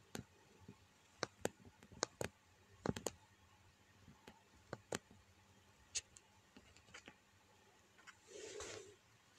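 About a dozen faint, sharp clicks at irregular intervals, then a brief soft rustle near the end.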